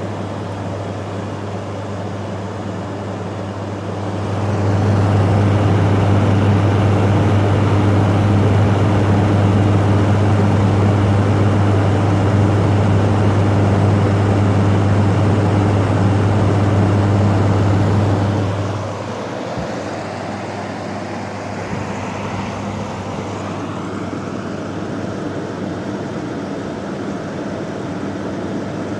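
LG room air conditioner running normally, its start-up rattle gone: steady fan airflow with a low hum that comes up louder about four seconds in and drops back down about nineteen seconds in.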